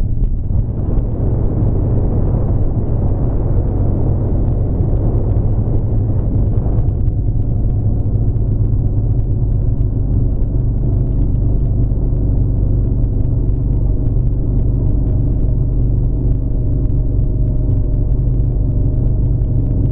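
Vehicle engine running at a steady speed with a low drone and road noise. About seven seconds in, the rougher noise eases and a steadier engine hum remains.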